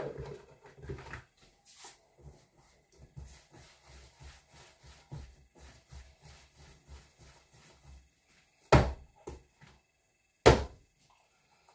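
Sourdough dough being kneaded by hand in a plastic bowl: soft, irregular squelching and slapping of the wet dough. Near the end come two loud knocks with a smaller one between them.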